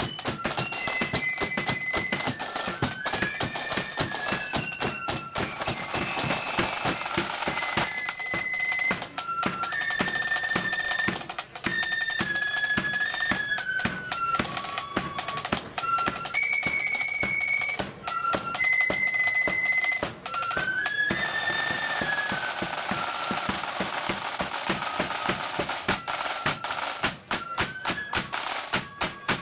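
Marching flute band playing a march: a melody on the flutes over snare drums and a pounding bass drum.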